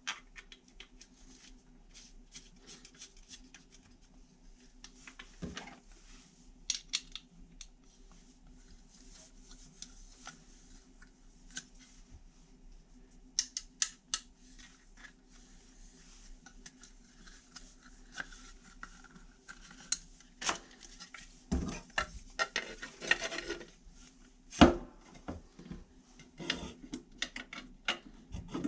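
Small bolts and nuts being hand-threaded through a black mounting plate: scattered light clicks, taps and rattles of the hardware and parts being handled, with a few louder knocks in the last third, over a faint steady hum.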